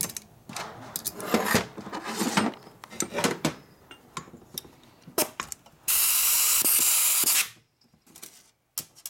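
Metal clicks and clinks of a valve spring compressor and valve spring parts being handled on a workbench, then a loud, steady spray hiss lasting about a second and a half.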